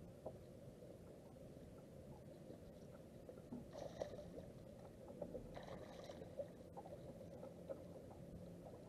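Near silence: faint, steady low outdoor rumble on an open lake, with two brief soft hissy rustles about four and six seconds in.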